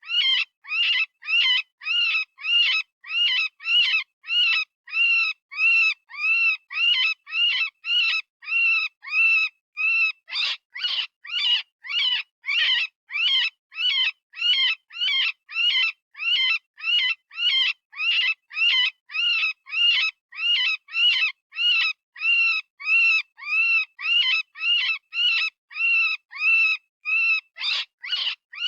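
Software-generated rabbit distress call: a screaming cry repeated about twice a second in an unbroken, even series, each cry rising and falling in pitch. It imitates the scream a rabbit gives in pain or fear, the sound used as a predator call.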